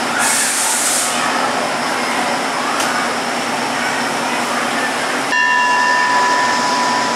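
Diesel passenger train standing at a station platform with its engine running: a steady rumble and hiss. A short, sharp hiss comes right at the start, and a steady high tone of several pitches together sets in about five seconds in.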